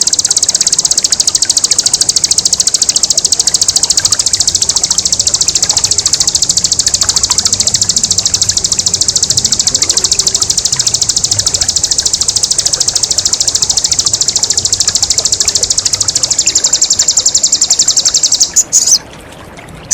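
Bar-winged prinia (ciblek) giving its 'ngebren' song: one long, high, very fast trill of evenly repeated notes that carries on without a break for over eighteen seconds and stops near the end. Water trickles faintly underneath.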